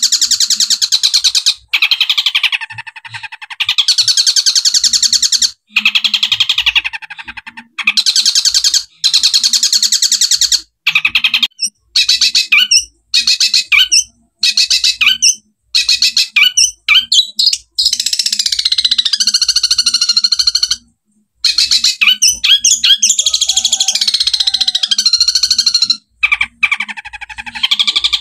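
Long-tailed shrike (cendet) singing: long runs of rapid, harsh chattering notes with quick up-and-down pitch sweeps, broken by short pauses.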